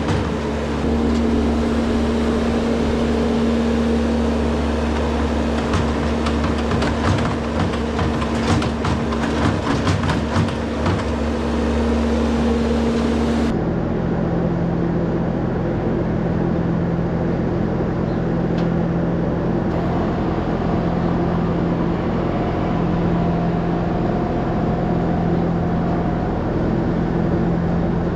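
Bobcat skid-steer loader's engine running steadily while its bucket dumps manure into a spreader, with a spell of knocks and clatter in the middle of the first half. After a sudden cut, a John Deere tractor's engine runs steadily at a lower pitch as it pulls the loaded manure spreader away.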